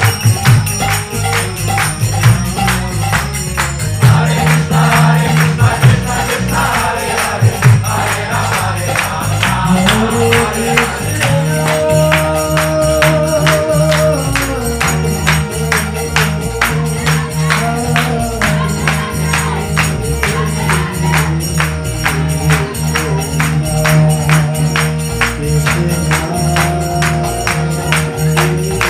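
Devotional kirtan: a man singing into a microphone over a steady, fast beat of jingling metallic percussion.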